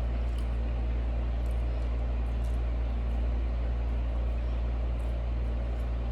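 Steady low rumble of an idling vehicle heard from inside, with faint short clicks and rustles now and then.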